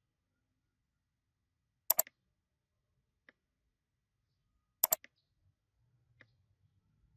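Computer mouse clicking: two sharp double clicks about three seconds apart, with a faint single click between them and another near the end.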